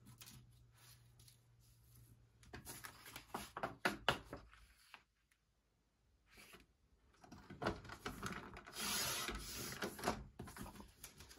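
Creative Memories sliding-blade paper trimmer cutting strips from stacked patterned paper: a few clicks and knocks as the paper is lined up and the blade carriage set, then a longer sliding cut along the rail about eight seconds in.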